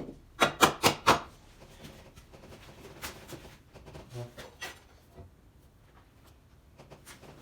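Four sharp knocks in quick succession about half a second in, then fainter scattered clicks and clunks: hand tools knocking on metal parts of a tractor during a teardown.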